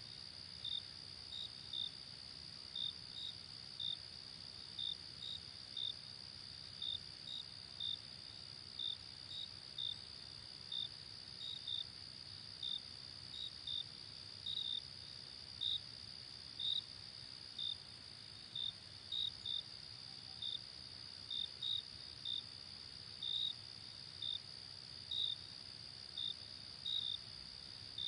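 Night insects, typical of crickets: a steady high-pitched trill with short, sharper chirps on top repeating irregularly about once or twice a second.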